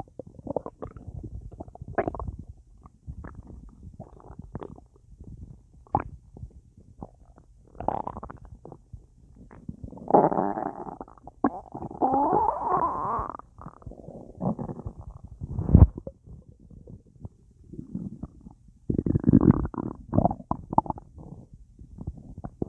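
A full, gassy stomach gurgling and rumbling after a large meal and a drink. Short, irregular bubbly pops and gurgles, with a longer gurgle that wavers in pitch about ten seconds in, a sharp low thump near sixteen seconds, and another burst of gurgling near the end.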